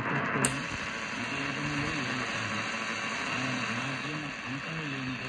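Eton Field BT Grundig Edition radio's speaker playing an AM medium-wave station on 882 kHz: a voice under a steady hiss of static. A single sharp click about half a second in as the band width knob is turned.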